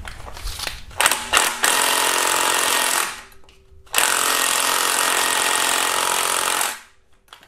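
Cordless power ratchet running in two long bursts, about two and three seconds each, on a tight AC compressor mounting bolt without breaking it loose; the mechanic suspects the tool's battery is weak.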